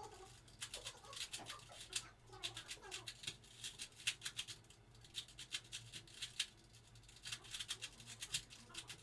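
Rubik's cube being twisted by hand: rapid, irregular runs of small plastic clicks and rattles, pausing briefly a few times.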